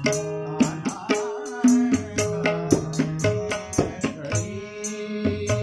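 Harmonium playing held, sustained notes of a melody over a steady rhythm of hand-drum strokes, as in Kumauni Holi accompaniment.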